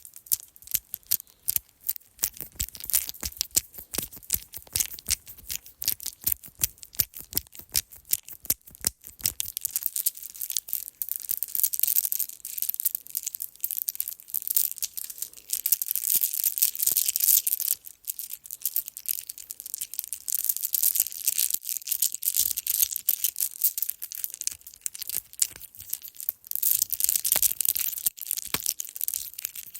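Necklace clinking and jingling as it is handled: separate sharp clicks for about the first nine seconds, then denser, near-continuous jingling with brief pauses.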